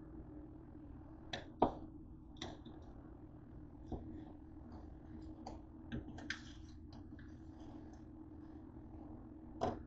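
Plastic slotted spatula tapping and scraping on a metal sheet pan while moving tater tots: a few sharp clicks scattered over a steady low hum, the loudest about one and a half seconds in and another cluster near the end.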